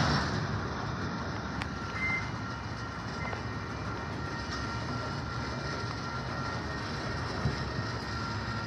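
Freight train of enclosed autorack cars rolling slowly past, a steady rumble of wheels on rail with a faint, steady high whine over it.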